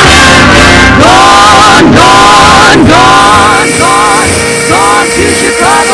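Music: a song with a sung melody over instrumental backing.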